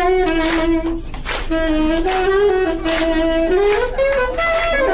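Saxophone playing a melody in long held notes, with scattered hand claps.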